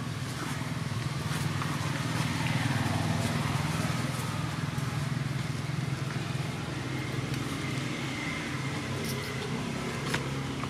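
An engine running with a steady low hum that swells over the first few seconds, then eases off a little.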